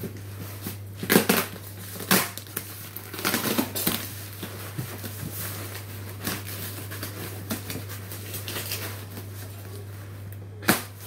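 Cardboard shipping box being opened: a blade slitting the packing tape in a few loud scratchy rips in the first four seconds, then cardboard flaps rustling and scraping, with another sharp rip near the end. A steady low hum runs underneath.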